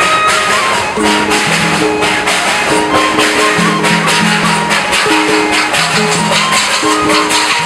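Background music: a Latin-style tune with a steady shaker rhythm under a melody of held notes that step up and down in pitch.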